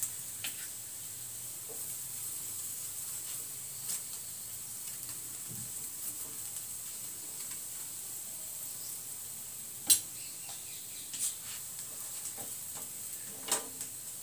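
Paratha sizzling softly on a hot iron tawa as ghee is spread over it with a steel spoon. A few sharp clicks of the spoon and a wooden spatula against the pan stand out, the loudest about ten seconds in.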